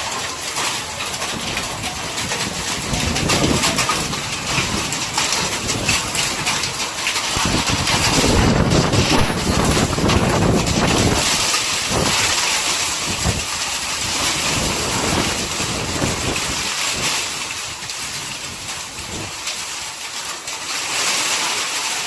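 Hail falling heavily: a dense, continuous rush of many small ice impacts, with low gusts of wind buffeting the microphone, strongest about halfway through.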